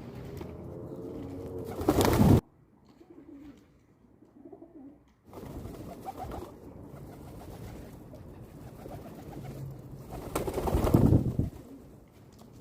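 Pigeons cooing in low, repeated calls, with two loud bursts of noise, one about two seconds in and a longer one near the end.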